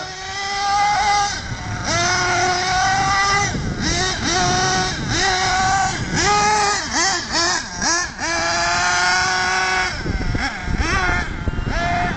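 Thunder Tiger EB4 S3 nitro RC buggy's .28 glow engine revving up and down as it is driven on sand: a high-pitched whine that climbs with each burst of throttle and drops off, in a run of short blips and longer held pulls.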